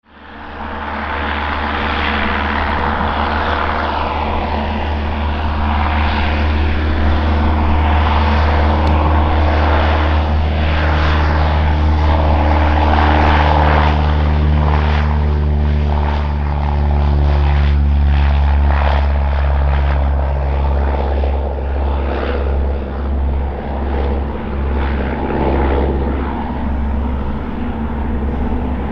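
Cessna 172R Skyhawk's four-cylinder Lycoming engine and propeller at take-off power, a loud steady drone as the plane runs down the runway and lifts off. Near the end it wavers in level as the aircraft climbs away.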